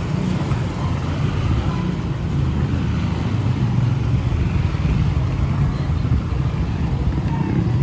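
Street traffic of motorcycles and motorcycle-sidecar tricycles, their engines running as they pass, a steady low rumble.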